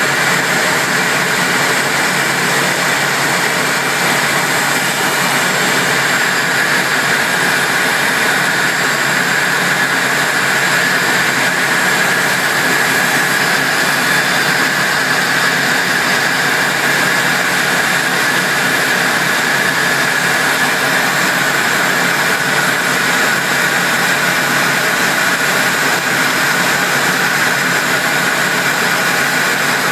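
Steady cockpit noise inside a two-seat Eurofighter Typhoon in flight: an even, hissing rush of its twin Eurojet EJ200 turbofans and the airflow around the canopy, with no change in pitch or level.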